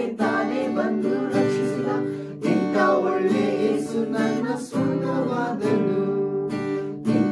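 Acoustic guitar strummed under several voices singing a worship song together in sustained phrases.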